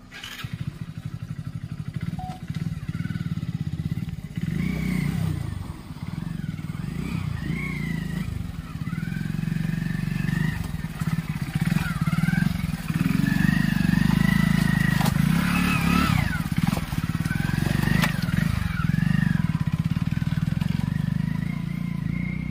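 Hero Splendor Plus motorcycle's small single-cylinder four-stroke engine running at low revs, the throttle rising and falling as it crawls over rocks, with a few sharp knocks.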